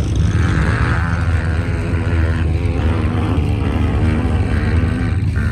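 Wind rumbling on the microphone, with a distant off-road vehicle's engine running hard, its pitch rising and falling.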